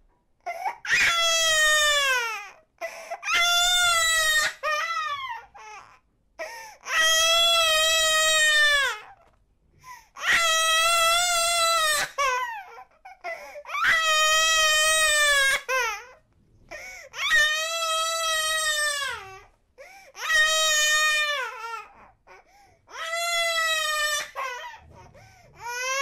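An eight-month-old baby crying hard: a string of about eight long wails, each lasting roughly two seconds, with short catches of breath between them, each wail dropping in pitch at its end.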